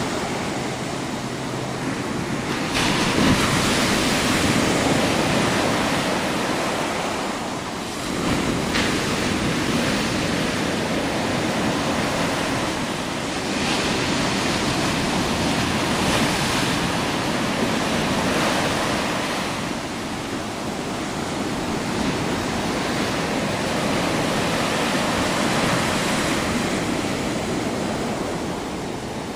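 Ocean surf breaking on a sandy beach and washing up the shore, a continuous rush of white water that swells louder every few seconds as each wave breaks.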